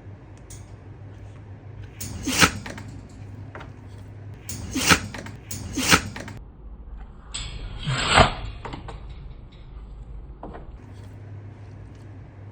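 A Samoyed dog sneezing four times: a first sneeze, two more about a second apart, and a last one after a short snuffly build-up.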